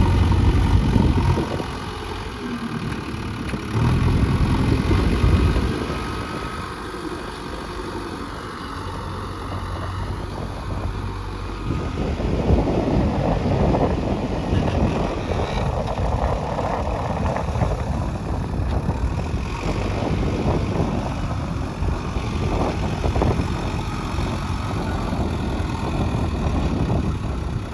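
Diesel engine of a JCB 3DX backhoe loader running while it works, its level rising and falling, turning rougher and noisier from about halfway through.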